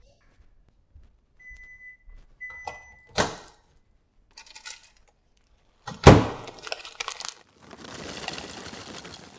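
Kitchen sounds: two short electronic appliance beeps, then a sharp knock, some clatter and a loud thud with further knocks, like cupboard or appliance doors and things set down on the counter. Near the end a steady rushing noise comes in.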